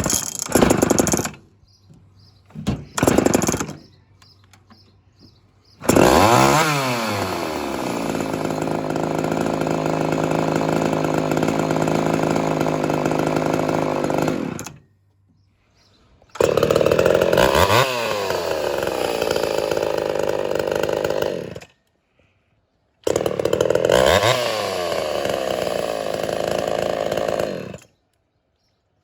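Ported Homelite Super XL-130 two-stroke chainsaw running in three separate stretches, after two short bursts at the start. Each stretch revs up and down sharply, then holds a high, steady run, and each is cut off abruptly.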